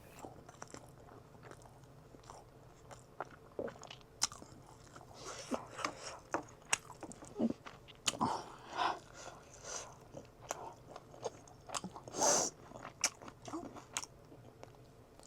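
A person chewing and eating a meal of rice, curry and chicken close to the microphone: irregular short crunches and mouth clicks, with a louder burst about twelve seconds in.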